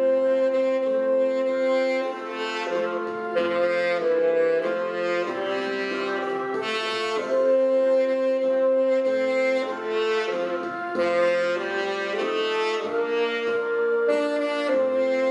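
Saxophone ensemble playing a slow hymn in harmony, several saxophones holding long sustained chords that change every second or two.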